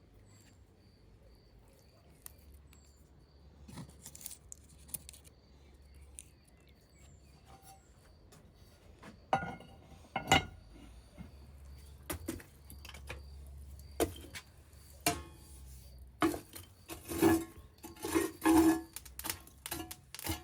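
Kitchenware clinking and knocking during cooking: scattered light clinks and knocks that become busier and louder after about nine seconds, with faint bird chirps behind them.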